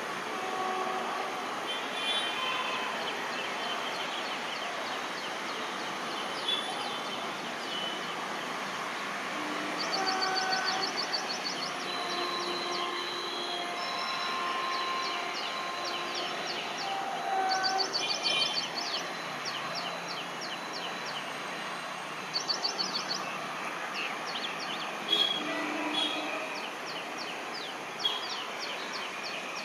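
Birds calling over a steady background hiss: every few seconds a burst of fast, high repeated notes, with short whistled notes in between.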